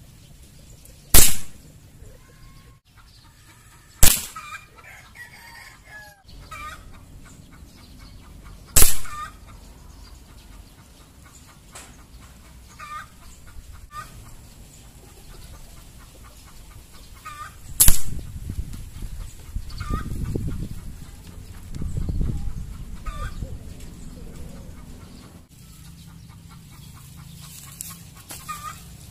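Four shots from a .22 CO2-powered hammer-type airgun firing pellets, each a single sharp crack. They come at uneven intervals: about a second in, then at roughly four, nine and eighteen seconds.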